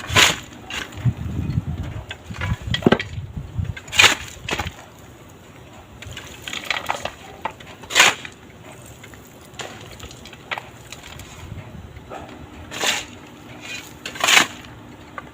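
Hand tools knocking and clanking on metal, five or so sharp strikes a few seconds apart with quieter rattling between, while working on the GAZ jeep's alternator mounting.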